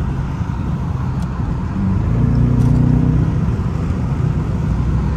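Dodge Charger R/T's 5.7-litre HEMI V8 pulling in third gear at highway speed, heard from inside the cabin. About two seconds in the engine gets louder and holds a steady drone as the car gathers speed.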